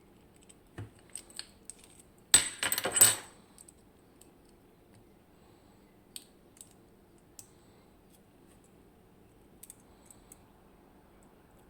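Small metal lock parts and tools clicking as a Miwa EC lock is taken apart. A short burst of metallic rattling, like small pieces dropping onto a hard surface, comes about two and a half seconds in, with scattered single clicks before and after.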